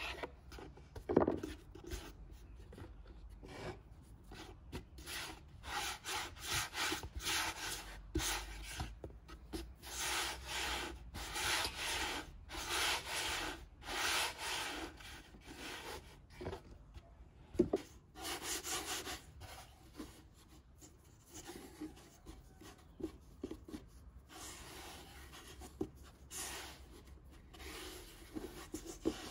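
Hands rolling pieces of dough back and forth under the palms on a floured wooden board: repeated rubbing strokes, about two a second, loudest through the middle and softer near the end. A knife chops through the dough onto the board near the start, and there is a single sharp knock a little past halfway.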